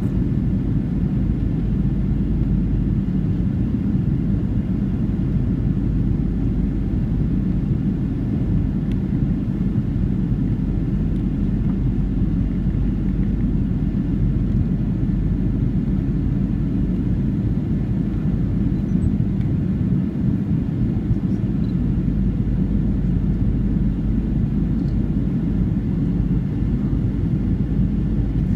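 Cabin noise of a Boeing 737-700 descending to land, heard from a window seat by the wing: a steady, low rumble of its CFM56 jet engines and the airflow over the fuselage, with no change.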